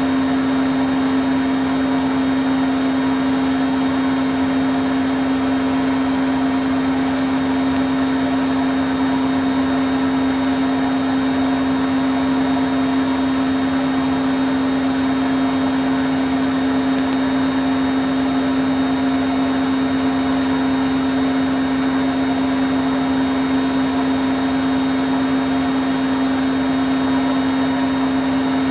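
Bosch Logixx 8 washing machine in its final spin at 1400 rpm: a loud, steady running noise with one strong hum tone held throughout.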